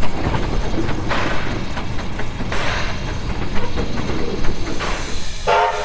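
Pichi Richi Railway's Coffee Pot steam railcar (Steam Motor Coach No.1) working along the line, its exhaust coming in bursts every second or two over a steady low rumble. A short whistle sounds near the end.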